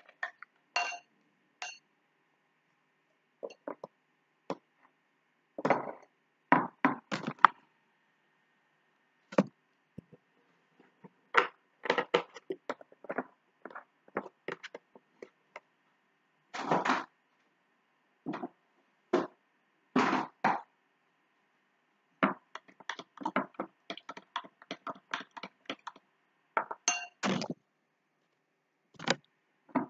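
Irregular knocks and clinks of kitchen containers being handled on a countertop: a glass, a jar with its lid and a carton. A few of the clinks ring briefly like glass.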